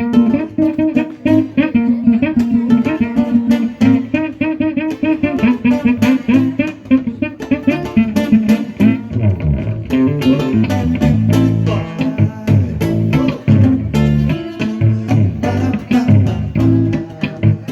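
Live instrumental music: a plucked guitar playing quick rhythmic notes over a bass guitar line.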